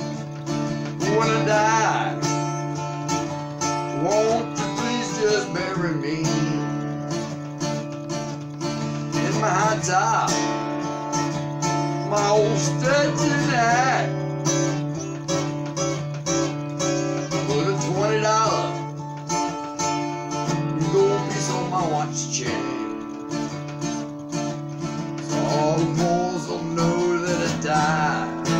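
Acoustic guitar strummed steadily, with a man singing along in phrases.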